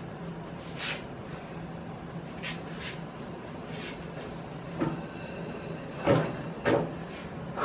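Heavy bandsaw on a stiff mobile base being shoved and turned by hand: scattered knocks and scrapes from the base and its small casters, which resist rolling, with a person's heavy breathing from the effort. The loudest knocks come near the end, over a steady low hum.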